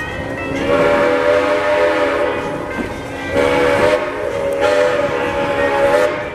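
Steam locomotive whistle of Edaville Railroad engine #11 blowing two long blasts, several notes sounding together in each, as the train pulls out of the station.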